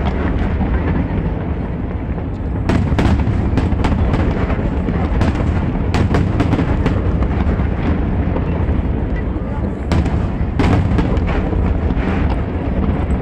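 Aerial fireworks display: a continuous low rumble of shell bursts broken by rapid sharp bangs and crackles, with clusters of louder reports about three seconds in and again near ten seconds.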